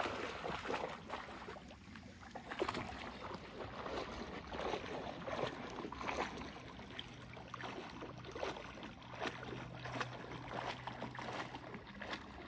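Dog splashing about in shallow lake water: irregular sloshes and splashes with water lapping.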